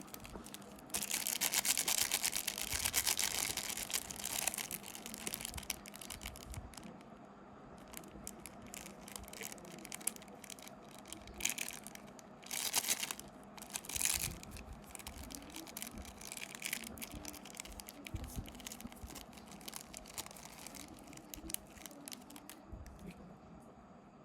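Plastic candy wrappers and packaging crinkling and tearing as they are handled and opened. A long stretch of rustling starts about a second in and lasts about three seconds, followed by shorter, sharper bursts.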